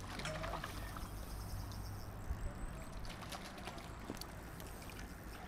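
Light water splashing and trickling, with a few short, soft knocks scattered through it.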